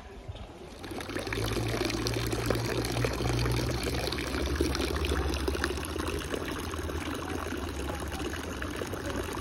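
Fountain water pouring from a bronze fish spout and splashing into a stone basin, starting about a second in. A low rumble lies under the splashing for the first few seconds.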